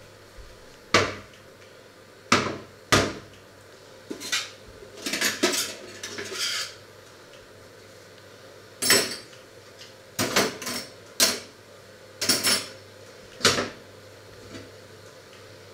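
Dishes and cutlery being handled: a series of sharp clinks and clatters, about ten in all, with a busier rattle about a third of the way in.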